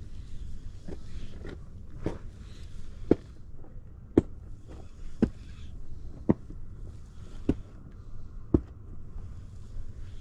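Slow, regular footsteps on the bank, a sharp knock about once a second, with a faint crunching between steps over a steady low rumble.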